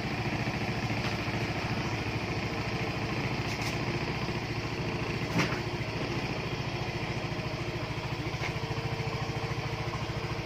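Yamaha Mio scooter's single-cylinder four-stroke engine idling steadily, with a brief click about five seconds in.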